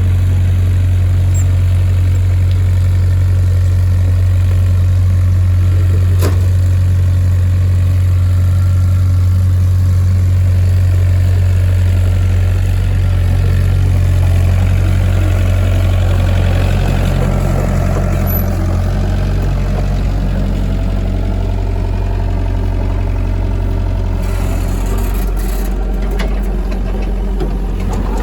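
Excavator engine running steadily with a low, even hum that shifts slightly about two-thirds of the way through.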